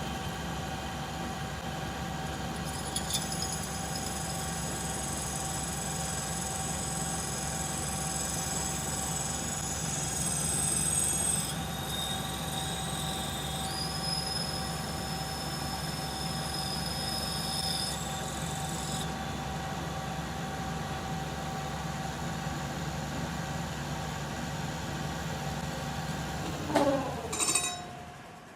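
Axelson metal lathe running with a steady hum while taking a cut on a small pin; high whining tones come and go for much of the time. Near the end its pitch falls and the sound dies away as the lathe stops.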